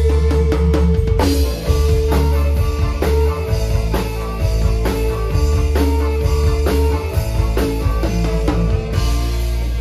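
Live dangdut band playing an instrumental through a stage sound system: drums with a heavy bass beat under electric guitar.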